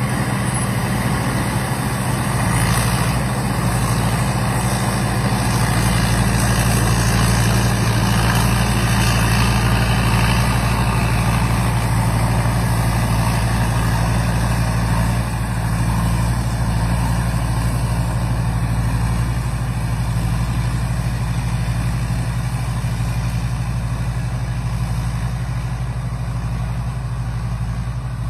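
Rice combine harvester running steadily: a constant low engine drone with a continuous mechanical rush over it.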